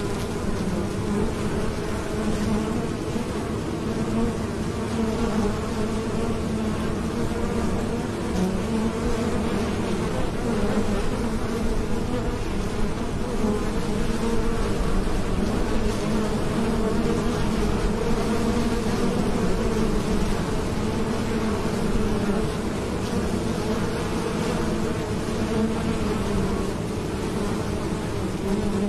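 Many honey bees buzzing at their hive entrance as they fly in and out, a steady low hum of wingbeats from many bees at once.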